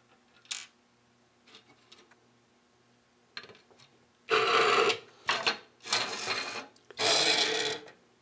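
Black plastic electric-meter casing handled and slid across a desk: a click, then several loud scraping rubs in the second half, three of them long.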